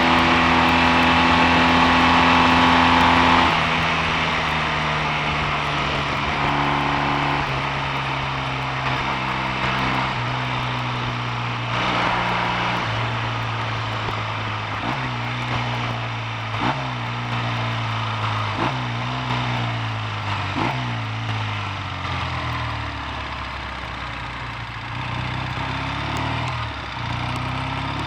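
Triumph T140V's 750 cc parallel-twin engine running under way, steady at first and then easing off. Through the second half it changes down four times about two seconds apart, the engine note jumping and dying away with each, and it slows toward idle near the end.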